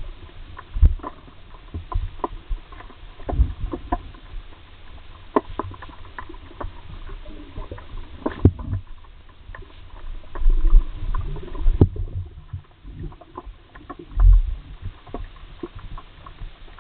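Underwater sound picked up by a camera in a waterproof housing: muffled low thumps and rumbles from water surging against the housing, loudest about a second in and twice more later, over a bed of scattered sharp clicks and crackles.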